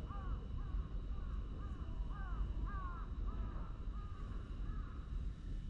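A bird calling in a rapid series of short, arched calls, about two a second, that stops near the end. Wind rumbles steadily on the microphone underneath.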